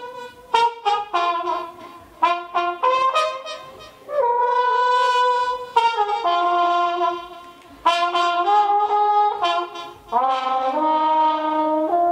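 Solo trumpet improvising: a run of short, separate notes, then longer held notes. About ten seconds in, a low note bends upward.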